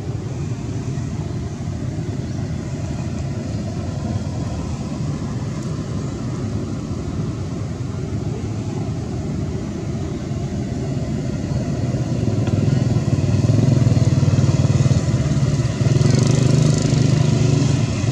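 Steady low rumble of motorbike and road traffic passing on a nearby road, growing louder about two-thirds of the way through.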